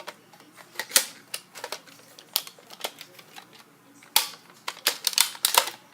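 Hard plastic clicks and rattles as a Nerf blaster attachment is pulled off one blaster and clipped onto another; irregular clicks throughout, with a louder snap about four seconds in.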